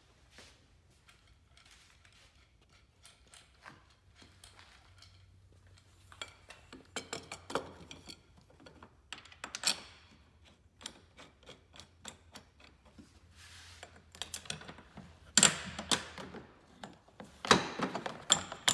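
Irregular clicks, rattles and knocks of a snowmobile's plastic body panels and steering spars being handled and fitted back in place by hand. The sounds start about six seconds in, and the loudest knocks come in the last few seconds.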